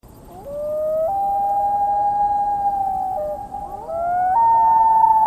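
Common loon wailing: two long wails, each sliding up and then holding a higher note, with the second beginning a little after three seconds in and stepping up again about a second later.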